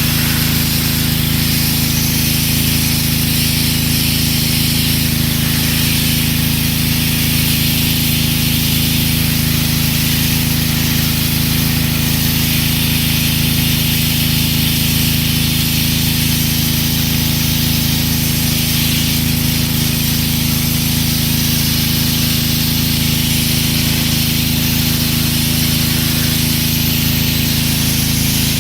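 Pressure washer running steadily: a low engine drone under the loud hiss of the water jet spraying concrete.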